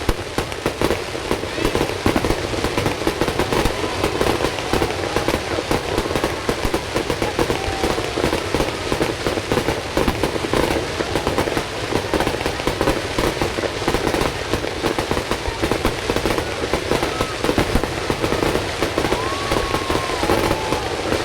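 Fireworks display: a dense, continuous barrage of bangs and crackling pops with no let-up.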